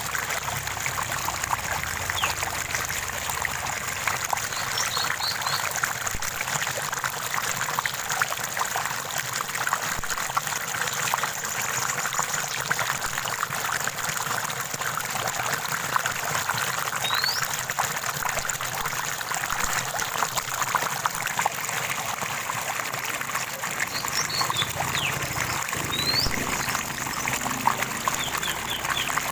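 Running water from a small stream or spring trickling and splashing steadily, with a few faint short bird chirps now and then.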